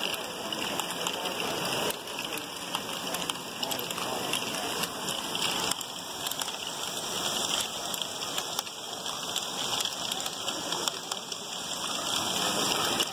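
LEGO Great Ball Contraption modules running: small plastic balls and LEGO mechanisms clattering, a dense steady rattle made of many small clicks.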